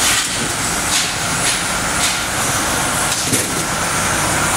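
Automatic shrink-wrap packaging line running: a steady, loud machine din with short hissing swishes recurring about every half second to a second.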